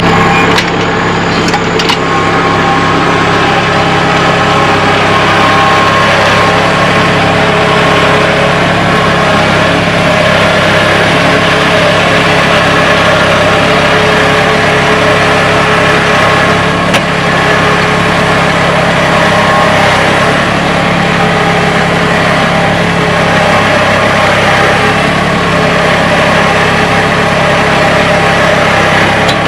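Kubota L3901 tractor's three-cylinder diesel engine running steadily while it pulls a potato plow through the row.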